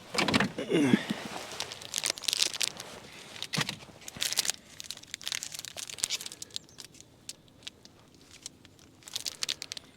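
Plastic cereal-bar wrapper being crinkled and torn open: irregular crackling, busiest in the first half and thinning out later.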